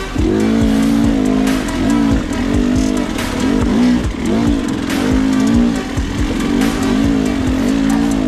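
Dirt bike engine revving up and down again and again as the throttle is worked over rough ground, with short knocks and clatters throughout.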